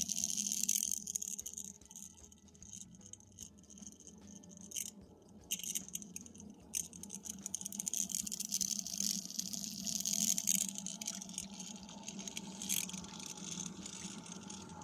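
BMW N20 engine's cooling system during bleeding: a steady hum, with hiss and trickling of coolant and air that come and go, and a few sharp clicks.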